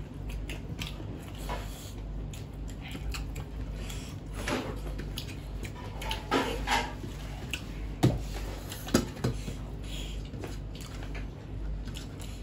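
Hand-eating at the table: fingers squishing and mixing rice against stainless steel plates, with many small scrapes and taps on the metal. Two sharp clinks come about 8 and 9 seconds in.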